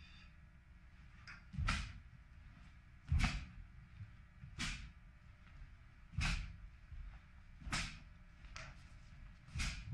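Sharp, short swishing snaps from a Taekwon-Do practitioner's techniques as he performs a pattern, one with each move, about every second and a half, with a few fainter ones between.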